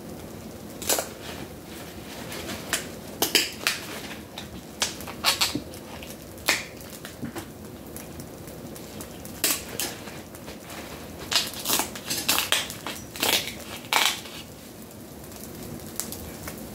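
Kitchen shears snipping and cracking through red king crab leg shells: irregular sharp cracks and crunches, some in quick clusters, against a faint steady background.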